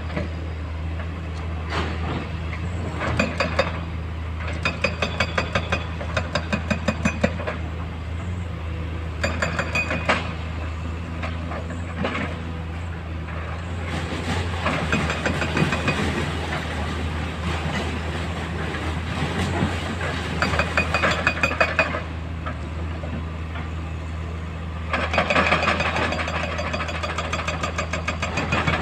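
Excavator diesel engine running steadily, with a hydraulic rock breaker hammering rock in several bursts of rapid blows.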